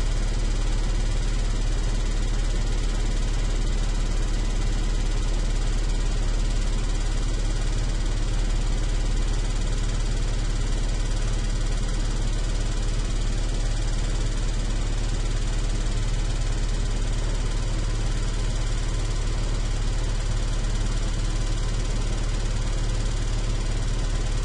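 Large electric fan running steadily: an even rush of moving air over a deep, constant motor hum.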